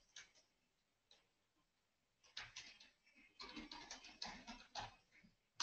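Near silence with faint computer keyboard typing, scattered clicks starting about halfway through.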